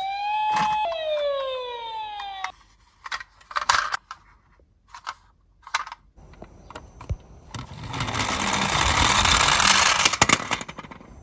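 Toy ambulance's electronic siren wailing, its tone sliding down in pitch and cutting off about two and a half seconds in. Then scattered small plastic clicks and knocks, and about three seconds of rolling noise from the toy car running down a slope, growing louder and stopping abruptly near the end.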